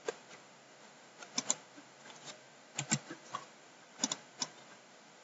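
Sharp clicks of a computer mouse and keyboard, about eight in all, several in quick pairs.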